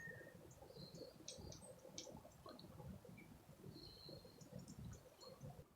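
Faint songbird calls: scattered short high chirps and a thin whistle near the start, over a low irregular rumble.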